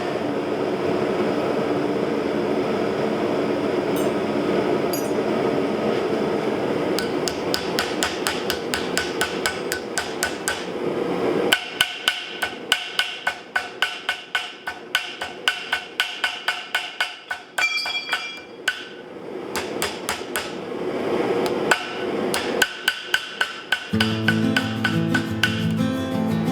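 Blacksmith's hammer striking iron on an anvil in a long, rapid run of blows, about three to four a second, after several seconds of steady noise. Background music is heard, and guitar comes in near the end.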